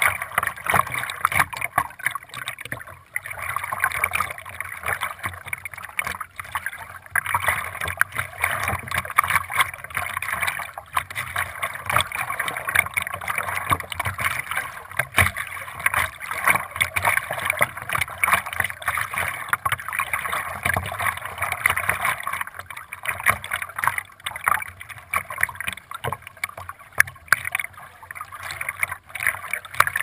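Water splashing and gurgling continuously against a camera held at the waterline while paddling, a close, crackling wash with no steady tone.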